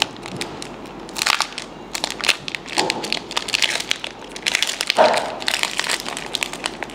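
Foil wrapper of a Pokémon trading-card booster pack being torn open and pulled apart by hand, crinkling in several crackling bursts.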